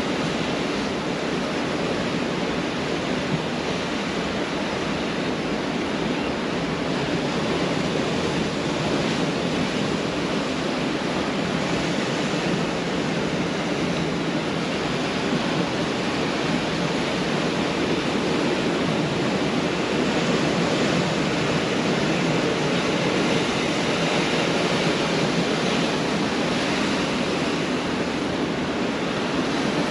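Pacific Ocean surf breaking on a beach: a steady, continuous wash of waves that swells slightly in the second half.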